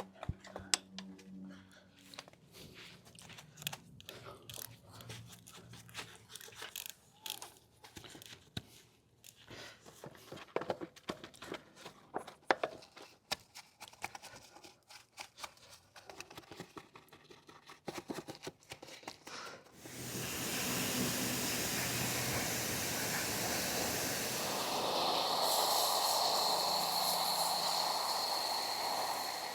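Car-detailing work: scattered light scrubbing, rubbing and clicking sounds for about twenty seconds, then a steady spraying hiss starts and keeps going.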